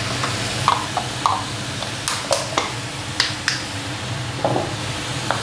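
Chicken pieces and diced peppers frying in a hot pan: a steady sizzle with scattered crackles and pops, over the steady hum of the cooker hood fan.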